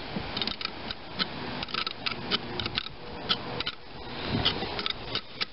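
Irregular metallic clicking and ticking from a small hand tool working against the metal housing of a Delco-Remy starter-generator, about twenty sharp clicks in quick uneven runs.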